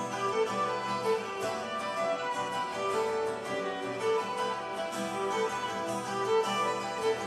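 Fiddle, kantele and acoustic guitar playing a tune together: bowed fiddle notes over steadily plucked strings.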